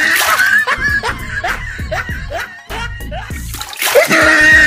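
Comedic background music with a steady low beat and repeated short rising whistle-like notes. About four seconds in, water is thrown out of a plastic tub and splashes onto the concrete.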